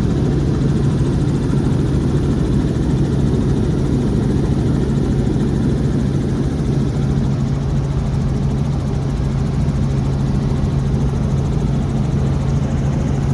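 Robinson R44 helicopter in flight: a loud, steady drone of its engine and rotors, with a strong low hum throughout.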